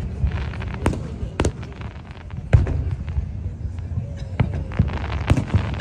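Aerial fireworks shells bursting overhead: several sharp bangs, the loudest about two and a half seconds in, with a low rumble running between them.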